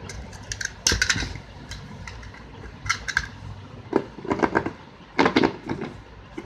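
Plastic shrink-wrap being cut with a utility knife and pulled off a cardboard phone box: crinkling, crackling and scraping in several short bursts, loudest about a second in and again about five seconds in.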